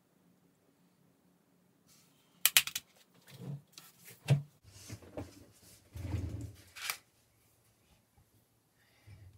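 Small tools and objects being handled and set down on a hard work board: a cluster of sharp clicks, then knocks and short rustling shuffles, ending in a sharp click.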